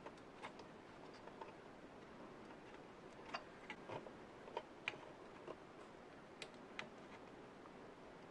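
Faint, irregular small clicks, about a dozen, spaced unevenly over a quiet room background.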